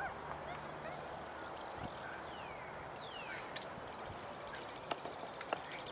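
Quiet open-air ambience: a faint steady rush of wind noise, with a few faint falling chirps and some small sharp clicks.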